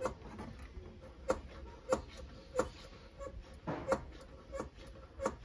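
Hand pump of a brake bleeder kit being pumped while flushing brake fluid: a short squeaky click with each stroke, about three strokes every two seconds.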